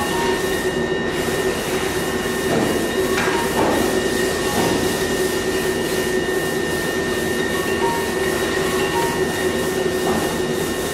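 Steady machinery noise of a factory workshop: a constant hum with several held tones and a fast, even pulsing.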